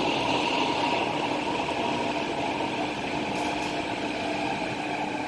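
Driverless Thomson-East Coast Line MRT train heard from inside the carriage as it slows into a station and comes to a stop: a steady hum with several whining tones over a rumble, getting gradually quieter.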